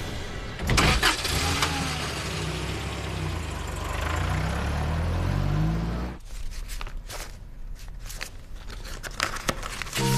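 Car engine starting with a loud burst about a second in, then revving as the car pulls away, its pitch rising in several steps. It cuts off about six seconds in, leaving a few faint clicks.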